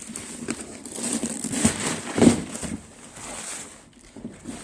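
Packaging being handled, crumpling and rustling, with louder crinkles around the middle.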